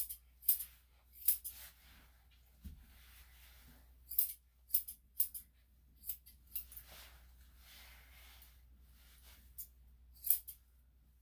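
Dog-grooming scissors snipping through a dog's coat: short, sharp, high-pitched snips at irregular intervals, some single and some in quick pairs.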